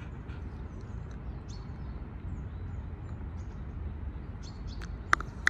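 Steady low outdoor rumble with faint, scattered bird chirps. Near the end come two sharp clicks close together.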